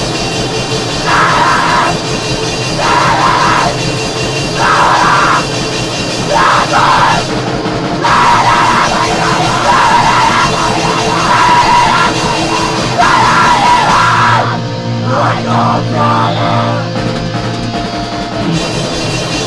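Grindcore played loud: a fast, even drum pulse under distorted guitars, with repeated yelled vocal bursts. About fourteen seconds in the drums drop out for a few seconds under a held low note, then the full band comes back in near the end.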